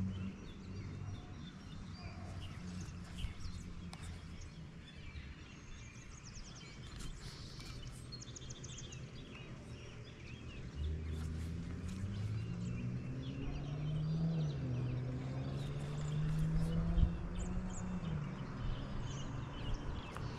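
Birds chirping and calling around a pond over outdoor background noise. From about halfway on, a low hum comes in underneath and slowly rises and falls in pitch.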